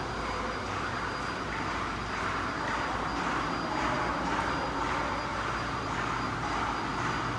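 Steady rushing hum of ventilation, with a faint constant high-pitched whine over it.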